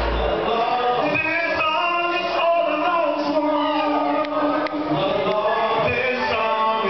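A man singing live into a handheld microphone over backing music; the deep bass of the backing stops about half a second in.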